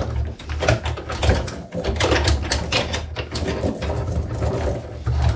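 Bicycle chain being handled and lifted off the rollers of a homemade chain cleaner: a run of irregular small clicks, knocks and rattles over a low rumble.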